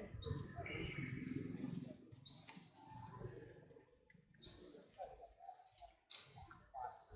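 Short, high-pitched chirping calls, each a quick upward sweep, repeated about once a second with a gap near the middle, over faint background noise.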